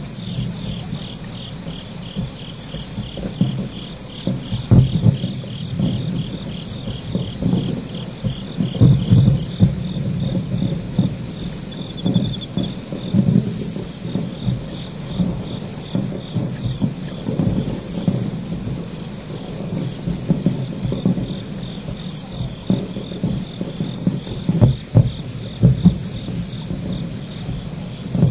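Distant fireworks booming as dull, irregular low rumbles, the loudest sounds here. Under them runs a steady insect chorus: a continuous high trill and a high chirp repeating about once a second.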